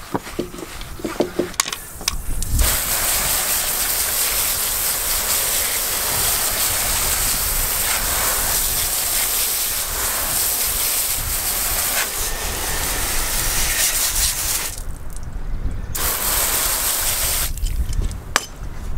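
Brief scrubbing with a stiff brush on a trailer wheel. A couple of seconds in, a garden hose spray nozzle starts blasting water onto the tyre and steel rim to rinse off degreaser: a steady loud hiss that cuts out twice briefly near the end.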